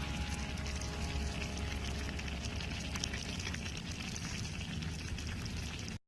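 Fire crackling with many small sharp pops over a steady low rumble; the sound cuts off abruptly near the end.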